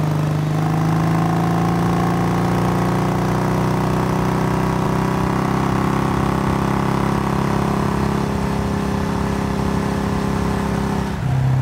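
Motorcycle engine running steadily, its pitch climbing slowly as it picks up speed, with a brief change in pitch near the end.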